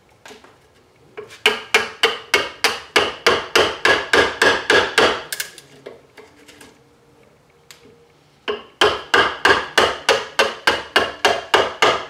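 Small hammer tapping a wood chisel into a wooden model boat hull, chipping out the wood in quick, even strikes, about four or five a second. Two runs of tapping, with a pause of about three seconds between them.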